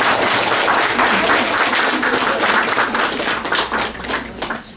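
Audience applauding: dense, steady clapping that thins to a few scattered claps and stops near the end.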